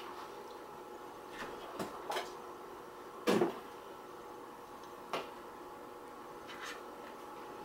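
A handful of light knocks and handling noises from things being moved on a wooden table, the loudest a short one a little over three seconds in, over a steady faint hum.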